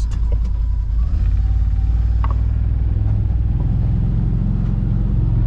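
Can-Am Defender Limited side-by-side's V-twin engine running with a steady low rumble, its note shifting slightly higher about three to four seconds in.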